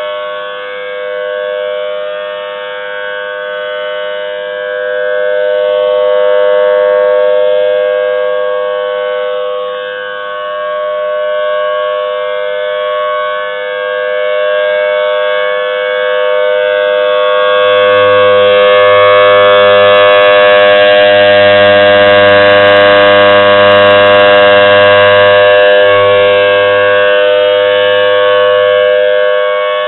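Federal Signal Thunderbolt 1000T tornado siren sounding a steady, unchanging tone at full speed. It grows louder and softer as the rotating siren head sweeps toward and away, loudest in the second half.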